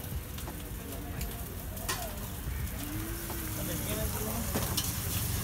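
Busy street-food stall ambience: indistinct voices and a few sharp clicks of utensils at the griddle over a steady low rumble.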